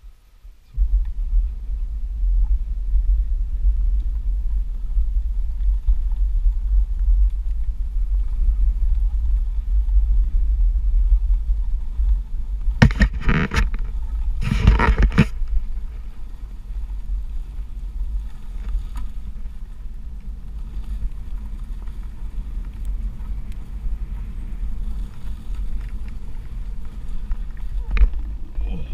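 Steady low rumble of a OneWheel XR+ electric board riding a dirt and gravel trail, starting about a second in. There are two short, louder bursts of noise just after the middle.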